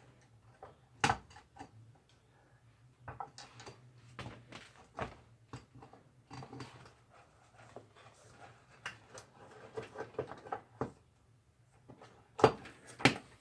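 Wooden boards being picked up and handled, giving scattered knocks and clatter, with a sharp knock about a second in and two loud knocks near the end.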